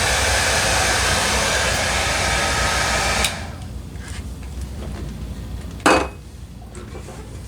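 Heat gun blowing steadily while shrinking iron-on plastic covering film, switched off abruptly about three seconds in. A single sharp knock follows a little later.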